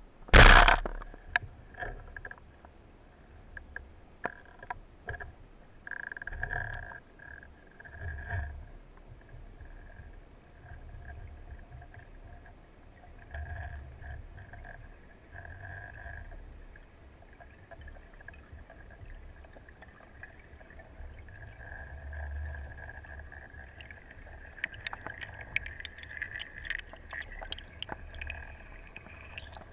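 Speargun fired underwater: one sharp, loud crack about half a second in. After it come muffled underwater knocks and low rumbles of water movement, with scattered bubbling clicks near the end.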